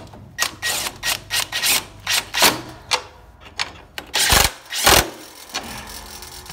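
Cordless 20-volt power driver run in a string of short trigger bursts, spinning down and tightening the nuts on a lawn tractor's belt idler pulleys. The last two bursts, about four and five seconds in, are the loudest as the nuts seat tight.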